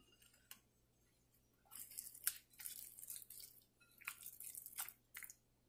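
A hand rubbing a spice paste marinade into raw fish pieces in a glass bowl: faint wet squishing and rubbing in several short bursts.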